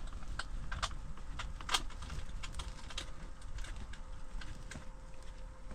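Irregular light clicks and taps, one sharper than the rest about two seconds in, over a low steady rumble and a faint steady hum.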